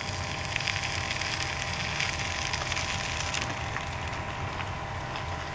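Dense crackling, rustling noise, loudest from about half a second to three and a half seconds in, over a faint steady hum.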